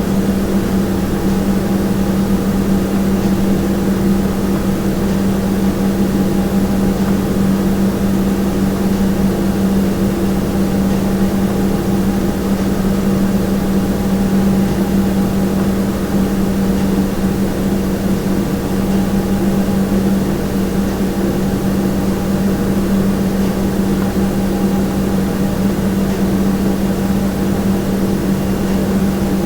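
Kitchen room tone: a steady, unchanging hum with one strong low tone and fainter higher tones over a bed of noise.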